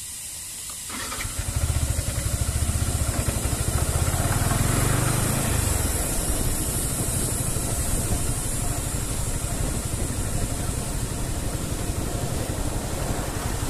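Yamaha R15M's 155 cc single-cylinder engine running while riding. The engine comes in about a second in, pulls harder for a few seconds, then holds steady, under a constant high hiss.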